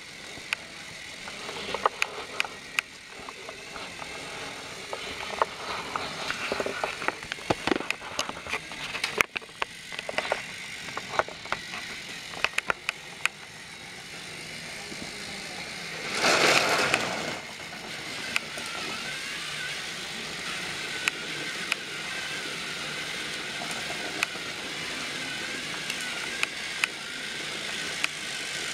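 Battery-powered Trackmaster toy train motors whirring on plastic track, with many sharp plastic clicks and clatters through the first half. About halfway through, a louder rushing noise lasts about a second, after which a steady whir carries on.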